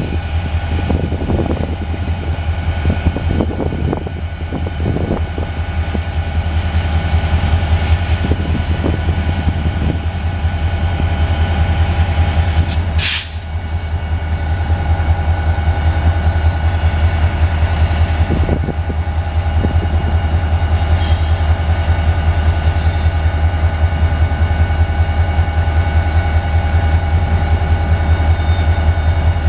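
CSX diesel locomotive idling loudly, a steady low rumble with a steady whine above it, while the cars of a passing freight train roll by with clicking wheels. A single sharp bang about 13 seconds in.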